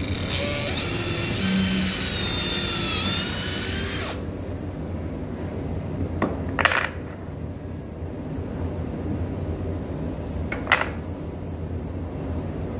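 Cordless drill/driver running for about four seconds, driving a screw into the wooden cabinet, its whine sagging in pitch under load. Later, two sharp knocks a few seconds apart.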